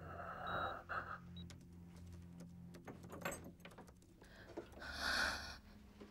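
Heavy, laboured breathing through an oxygen mask for about the first second, then faint scattered clicks over a low steady hum, and a short rustling swell about five seconds in.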